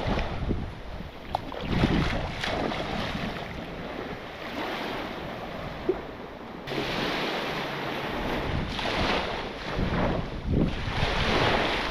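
Small waves washing up and draining back over a sandy beach in repeated surges, with wind buffeting the microphone.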